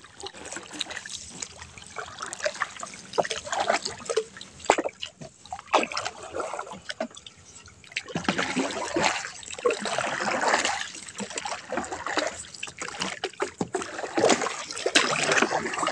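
Water splashing and trickling as a wooden paddle dips and pulls through the river and a wet nylon trammel net is paid out over the side of a small wooden boat, with scattered short knocks throughout.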